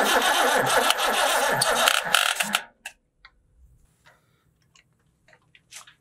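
Old Ford farm tractor's engine being cranked over by its starter, chugging unevenly, then cutting off abruptly about two and a half seconds in, leaving only a few faint clicks.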